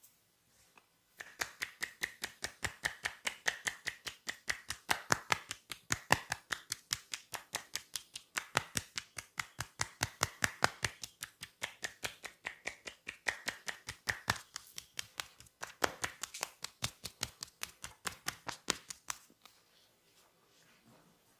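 Percussive massage: the masseur's hands strike the client's body in a fast, even train of sharp slaps, about five a second. It starts about a second in and stops shortly before the end.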